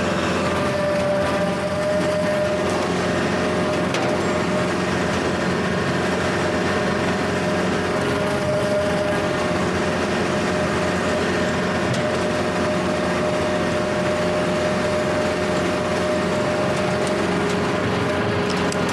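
Kubota L4701 tractor's diesel engine running steadily under load while driving a Countyline brush hog rotary cutter through tall grass, with a steady high whine over the engine note.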